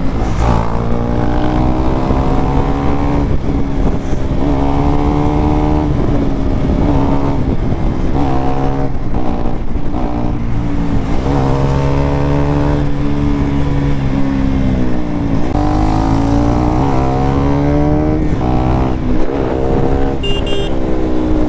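Sport motorcycle engine running under way, its pitch climbing and then dropping again and again as the rider accelerates and shifts up through the gears, over a steady rush of wind noise. A brief high beep sounds near the end.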